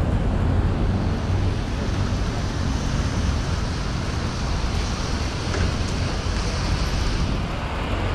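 Wind rumbling steadily on the microphone of a camera on a moving bicycle, with surf washing on the beach and a hiss that swells in the middle.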